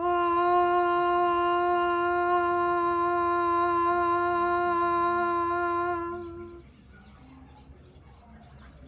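A woman singing a sustained open 'ah' (the vowel A) on one steady note for about six seconds, then letting it fade. It is a voice exercise: one long sung vowel after a breath in through the nose.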